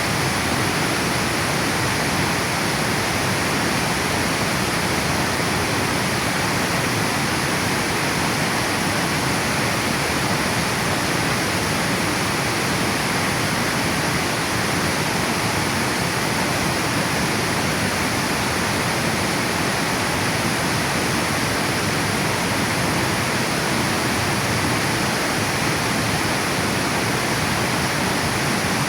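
River water pouring over a dam: a steady, even rush that keeps the same level throughout.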